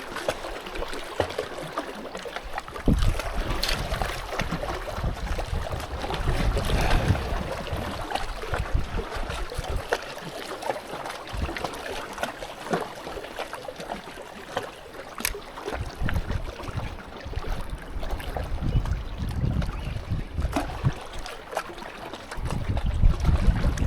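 Wind buffeting the microphone in repeated gusts, over a steady rush of water.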